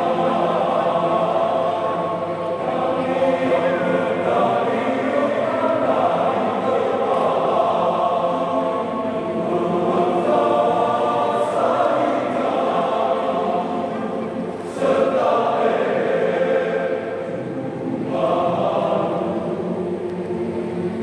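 Men's choir singing in harmony, long held notes in several parts, with short breaks between phrases.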